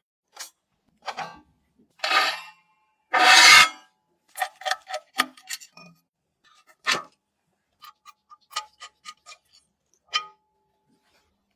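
Clicks, taps and knocks of PC hardware being handled and fitted during assembly. There are runs of quick small ticks and one louder scraping knock about three seconds in, and near the end a click leaves a short ringing tone.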